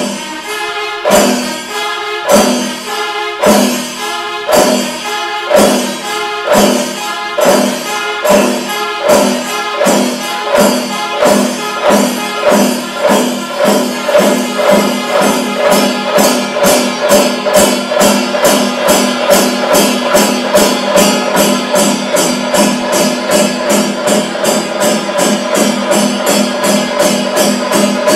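Chenda melam: Kerala chenda drums beaten in a steady rhythm that accelerates from about one stroke a second to about four a second, with kombu horns holding a sustained note through the second half.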